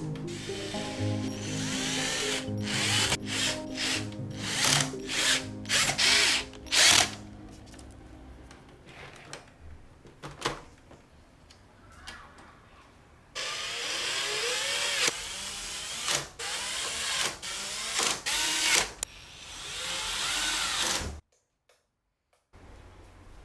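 Small power drill or electric screwdriver running in repeated short bursts, its whine rising and falling with each squeeze of the trigger, over soft background music. It cuts off abruptly near the end.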